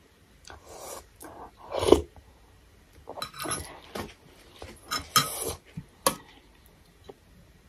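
Eating noodle soup: several short slurps and chewing sounds, the loudest about two seconds in, and a metal spoon clinking against a stainless steel bowl.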